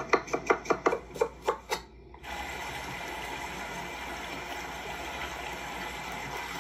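Knife chopping rapidly on a cutting board, about five strokes a second, stopping a little under two seconds in. After a brief pause a steady hiss takes over.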